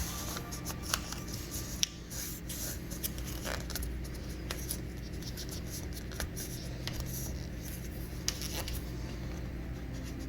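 Light scraping and scattered sharp clicks of a cutting tool trimming a peel-and-stick wood-plank wall decal, over a low steady hum.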